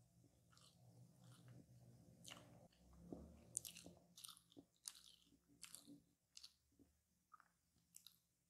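Quiet, close-miked chewing and biting of a coconut tart: many small crisp crunches of the pastry with soft mouth sounds, thinning out in the last few seconds.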